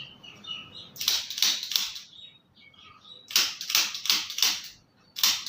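Runs of sharp taps, four to six at a time at about four a second, with short pauses between the runs.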